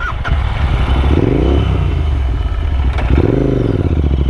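Vehicle engine running under way, its revs rising and falling twice, about a second in and again near three seconds.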